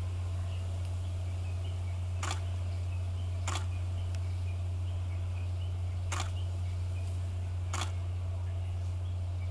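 Four sharp camera shutter clicks at uneven intervals over a steady low hum.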